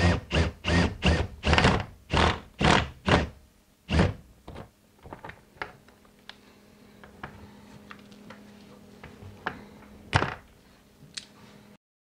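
A drill turning a socket on a slide-out cable coupler in short bursts, two to three a second for about four seconds, tightening the cable against an eye bolt held by vise grips. After that, only scattered light clicks and knocks of tool handling, with one louder burst near the end.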